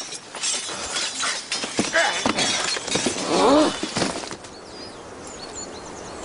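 A run of clattering and crashing noises with a wavering cry about three seconds in. These die away after about four seconds into quieter sound with birds chirping.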